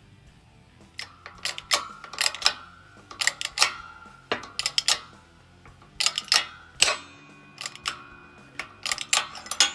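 Irregular run of sharp metallic clicks and clinks, some leaving a short ringing tone, from a bench press ram being worked down onto a wheel stud in a steel Willys brake drum hub to press the stud out.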